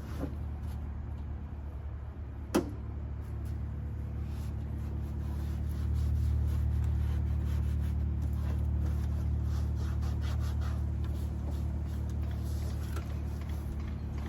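A steady low mechanical hum that gets louder about six seconds in, with one sharp click about two and a half seconds in.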